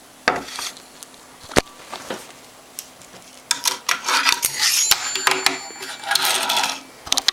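Close-up handling of small objects: a sharp click about a second and a half in, a few lighter clicks, then several seconds of rustling and scraping with clicks in it.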